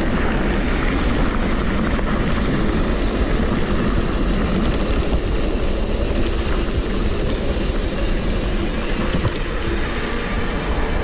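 Wind rushing over the camera microphone as a mountain bike rolls over a rocky trail, with steady tyre rumble and the frame and parts rattling in many small clicks and knocks.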